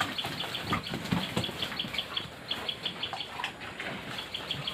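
Pigs at the trough with scattered short grunts and clicks, over a steady high chirping that repeats about six times a second.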